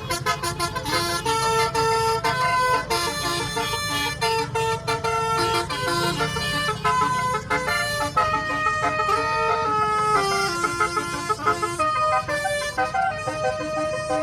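Multi-tone 'telolet' bus horn playing a long melodic tune, its notes stepping up and down in pitch in quick succession, over the low rumble of an engine.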